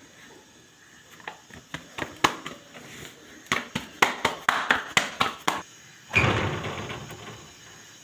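Roti dough being slapped and pressed flat on a round rolling board, a quick irregular run of sharp taps and knocks. About six seconds in there is a louder burst of noise that fades away over a second or so.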